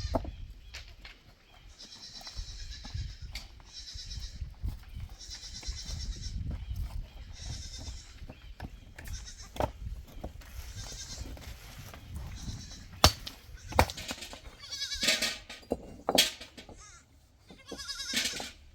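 Goats bleating over and over, one short call every second or two, with a few sharp knocks in the later part.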